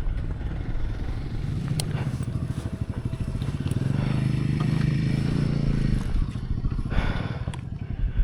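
Hero Xpulse motorcycle's single-cylinder engine running as it is ridden off-road, its note pulling harder from about four seconds in and easing off near six seconds, with a few sharp knocks.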